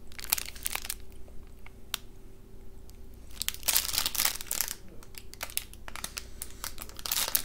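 Plastic snack wrapper crinkling as it is handled and opened by hand, in short spells of crackling, busiest about half a second in, around four seconds in and near the end.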